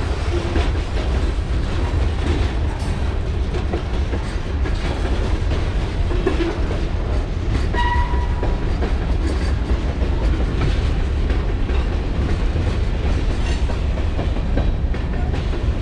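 Freight cars of a mixed manifest train rolling past during a switching move, a steady rumble with wheels clicking over the rail joints.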